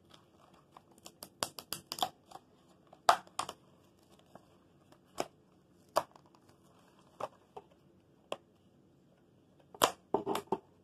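Cardboard box of a small Lego set being pried and torn open by hand: a string of sharp, irregular snaps and cracks as the flap gives and the cardboard rips, with a quick cluster near the end.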